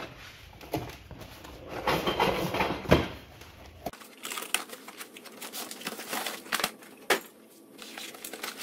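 Cardboard shipping box being slit open with a small knife: rustling and tearing of cardboard and tape, with a sharp knock about three seconds in and many short clicks and scrapes as the box is handled.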